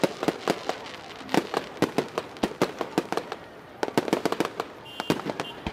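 Aerial fireworks going off in a rapid, irregular series of sharp bangs, with brief lulls between volleys.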